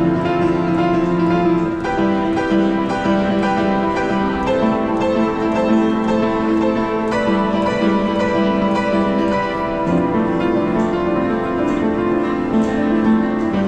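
Upright piano played by hand: slow, sustained chords with notes ringing into each other, the harmony changing every two to three seconds.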